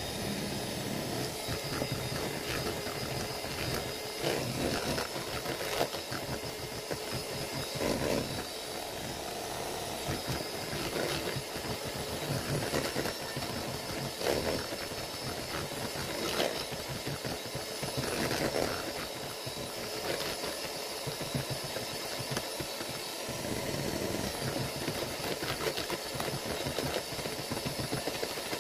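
Scarlett electric hand mixer running steadily, with a thin high whine, its beaters whisking thick homemade mayonnaise in a plastic bowl. The beaters knock against the bowl briefly every couple of seconds.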